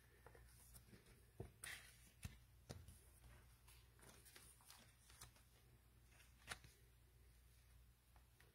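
Faint, scattered clicks and rustles of trading cards and pack wrappers being handled, with the clearest click about six and a half seconds in.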